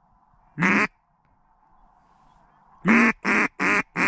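Duck call sounding a mallard hen's quacks: one single loud quack about half a second in, then a quick run of quacks near the end, the first of the run the longest and loudest.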